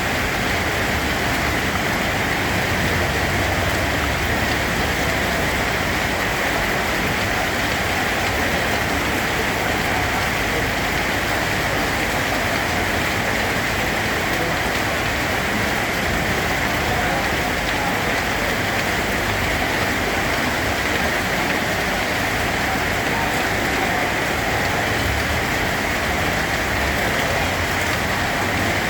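Steady rain falling: an even, unbroken hiss of drops on a surface.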